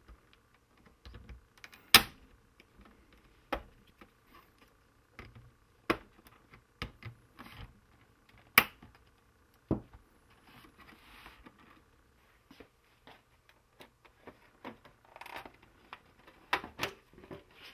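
Plastic snap clips of a V7 D22W12 LCD monitor's case clicking and popping as a screwdriver blade pries them apart along the seam: a scatter of sharp clicks, with two loud snaps about two seconds in and about halfway through. Softer scraping and rustling of plastic follows as the case comes free.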